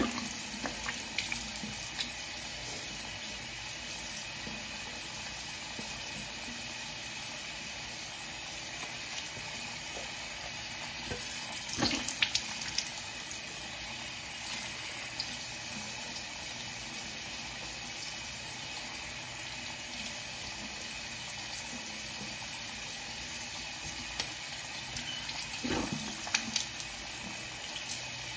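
Water running steadily from a faucet into a sink, with a few brief knocks about twelve seconds in and again near the end.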